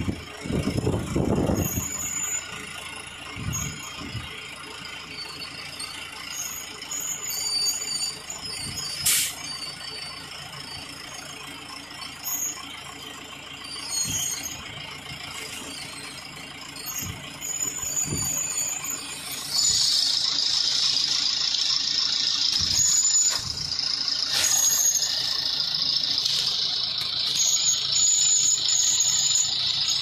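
Aimix 4.0 m³ self-loading concrete mixer truck working: knocks and clanks with brief high squeaks from its mechanism, then, from about twenty seconds in, a steady loud hiss.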